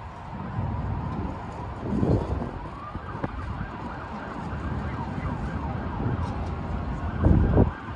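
A distant emergency-vehicle siren wails from the city streets below over a steady hum of city noise. Wind buffets the microphone in gusts about two seconds in and again, louder, near the end.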